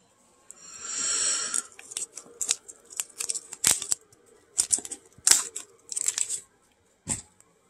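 Card mail packaging being opened by hand: one long rasping rip about a second in, then a run of short crinkles and rustles as taped cardboard and a plastic card bag are pulled apart, with a single click near the end.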